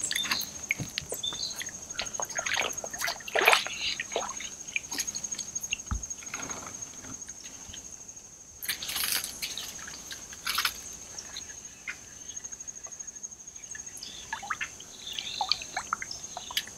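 Water sloshing and trickling around a kayak on a slow creek, in irregular splashes, over a steady high-pitched insect trill.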